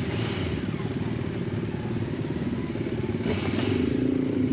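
Motorcycle engine running, a little louder in the last second.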